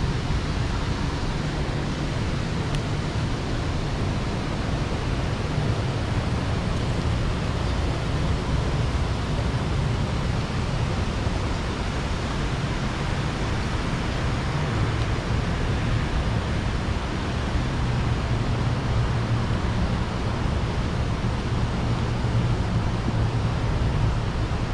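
Steady outdoor city background noise: an even rush with a low rumble and no distinct events.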